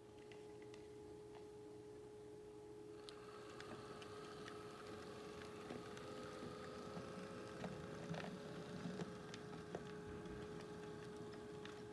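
HO scale model diesel switcher running slowly on the track: a faint motor whine comes in about three seconds in and wavers in pitch, with light clicks of the wheels over rail joints and turnouts, over a steady hum.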